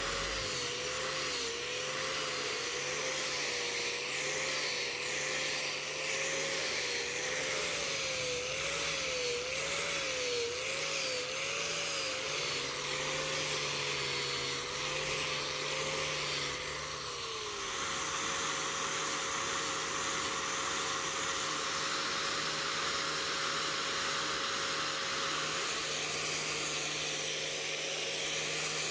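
Electric angle grinder with a foam-backed sanding disc sanding a black-and-white ebony handle. The motor's whine wobbles up and down as the disc is pressed into the wood and eased off, then holds a steady pitch for the last third.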